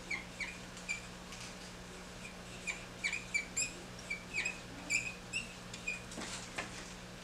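Dry-erase marker squeaking on a whiteboard while writing out words: a string of short, high squeaks, one per pen stroke.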